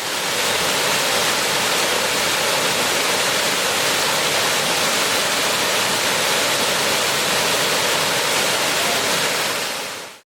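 Waterfall: a steady, even rush of falling water that fades in at the start and cuts off at the end.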